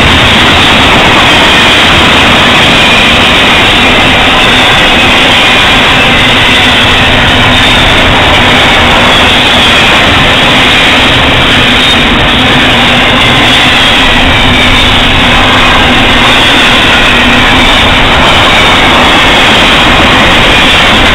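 Double-stack intermodal freight train's container well cars rolling past close by: a loud, steady noise of steel wheels running on the rails.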